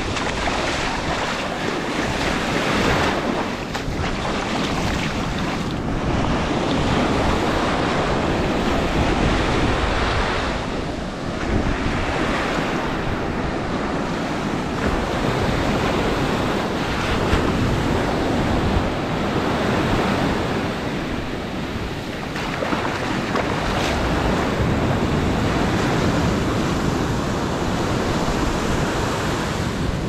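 Ocean surf breaking and washing up the sand in a continuous rush that swells and eases every few seconds, with wind buffeting the microphone.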